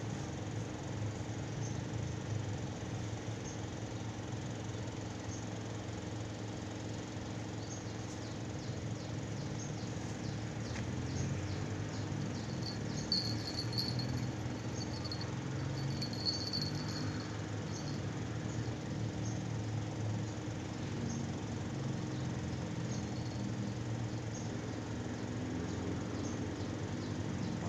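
Outdoor ambience: a steady low rumble under scattered short, high ticks and chirps from small creatures, with two brief bursts of high chirping about halfway through.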